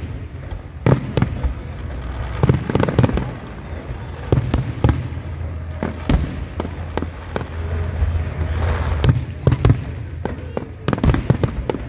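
Fireworks display: many aerial shells bursting in quick, irregular succession, their booms and cracks overlapping over a continuous low rumble.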